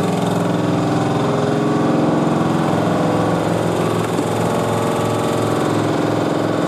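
Construction jackhammer hammering continuously with very rapid blows, over the steady sound of a running engine.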